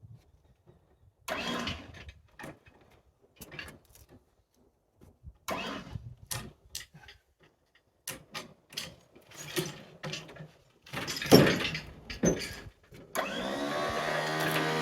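Scattered knocks and clatter, then a gas chainsaw pull-started: a rough burst of pulls, after which the engine catches and runs steadily near the end.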